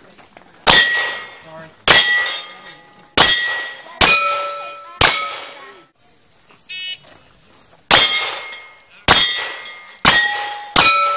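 A pistol fired in two strings at steel plate targets, each shot followed at once by the brief ring of the struck steel. Five shots about a second apart are followed by a gap and a short electronic shot-timer beep, then four more quick shots, each with its steel ring.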